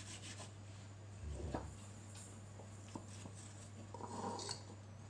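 Faint scraping of an apple being rubbed across a ridged glass grater, with a soft knock about one and a half seconds in.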